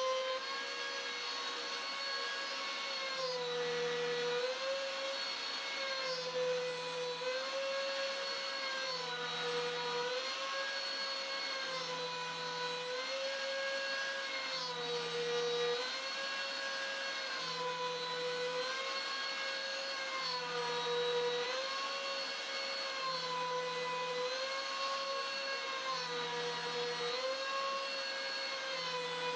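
Trim router spindle on a WorkBee CNC machine running at a high, steady pitch while cutting plywood. Its pitch dips briefly about every three seconds as the bit takes load, over a steady hiss.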